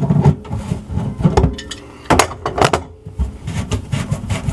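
Irregular knocks and clatter of kitchen sink strainer basket parts being worked loose and pulled apart by hand, with a cluster of sharp knocks about two to three seconds in.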